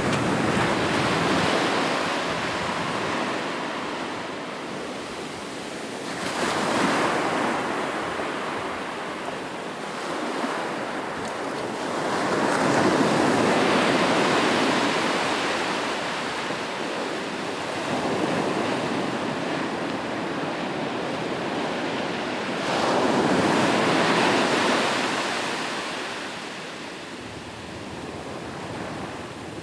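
Sea waves breaking and washing on a shore, surging about five times at intervals of five to six seconds.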